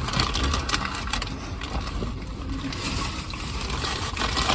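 Close-up eating sounds: chewing with many small crunchy clicks, over a steady low rumble.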